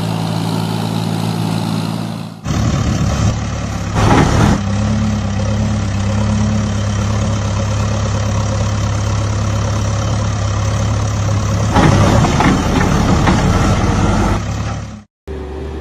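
Heavy vehicle engine sound effects running at a steady low idle, with abrupt cuts between sound clips about two and a half seconds in and again near the end. Louder noisy surges come about four seconds in and again from about twelve to fourteen seconds in.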